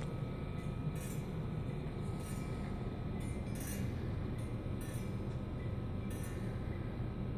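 Wind blowing by the ocean, a steady low rumble with short faint high hissy bursts every second or so.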